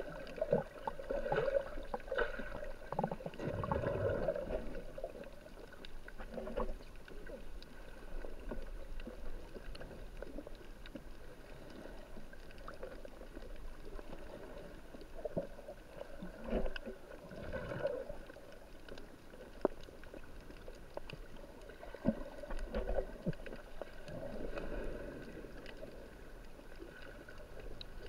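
Water sloshing and gurgling picked up by a camera held just under the sea surface, with irregular swells and a few sharp knocks and splashes as snorkelers swim close by.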